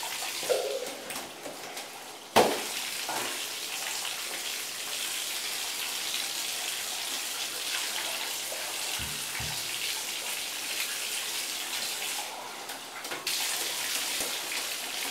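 Water running from a bathtub tap and splashing as a soapy cat is rinsed under it, with one sharp knock about two seconds in.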